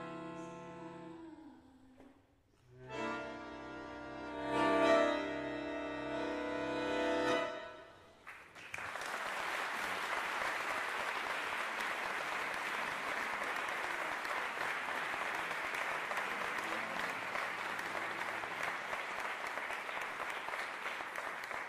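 A live instrumental piece ends with a few last notes and a long held final chord that swells and fades, then an audience applauds steadily for about thirteen seconds.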